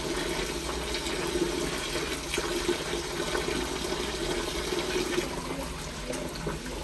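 Steady sound of water that runs on without a break.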